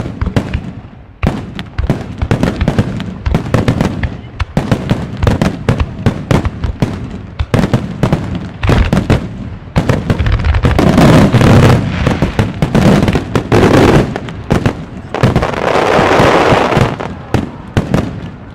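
A wide starmine fireworks barrage: rapid launches and shell bursts banging in quick succession, several a second, thickening about halfway in into near-continuous booming and crackle before thinning out near the end.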